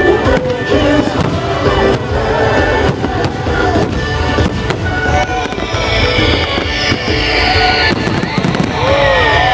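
Aerial fireworks bursting over and over, with sharp bangs and crackles, and music playing along with them. From about halfway through, a hissing crackle joins in and slowly falls in pitch.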